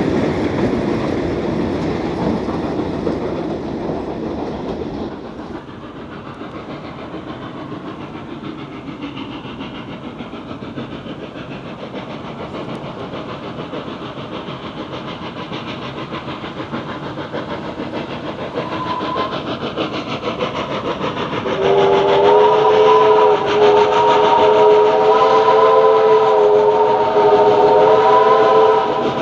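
A train passes close by with wheels clattering over the rail joints. Then comes the steady rumble of the NSW AD60 Beyer-Garratt steam locomotive 6029 approaching. About three-quarters of the way in, its steam whistle sounds a long, loud chord of several notes, broken briefly once.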